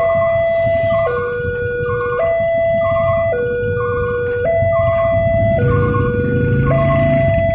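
Railway level-crossing warning alarm sounding a steady two-tone hi-lo note that switches pitch about once a second, signalling that the crossing is closed for an approaching train. Motorcycle engines idle underneath.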